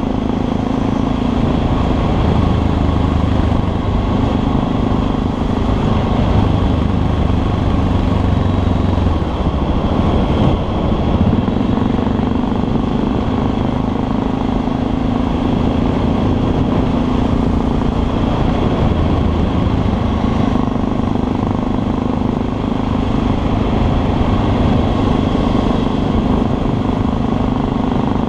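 Honda FMX650's single-cylinder engine running steadily under way, heard with wind and road noise on a helmet-mounted camera. The engine note breaks briefly about ten seconds in and again about twenty seconds in.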